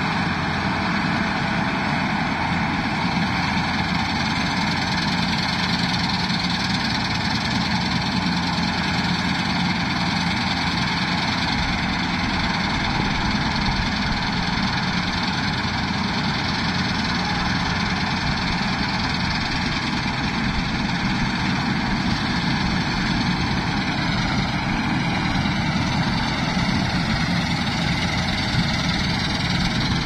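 New Holland 8070 combine harvester's diesel engine and machinery running steadily while it cuts and threshes standing wheat, an even, unbroken noise with no change in pace.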